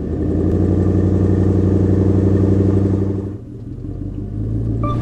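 A vehicle engine running steadily, just after starting, with an even pitch; it drops in level about three and a half seconds in, then comes back. Music begins right at the end.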